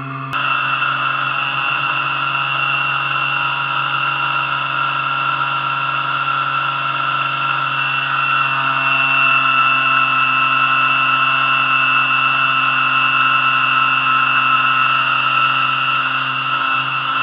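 Aquacraft Rescue 17 RC fire boat running under power, heard from a camera mounted on its deck: the drive motor's steady high whine over water rushing past the hull, a little louder from about halfway through.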